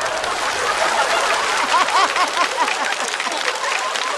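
Studio audience applauding, with scattered laughter mixed in.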